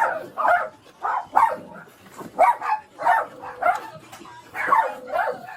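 Many dogs barking and yipping together, short sharp barks overlapping at about two a second.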